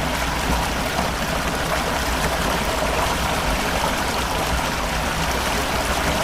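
Floodwater rushing steadily, a constant, even noise.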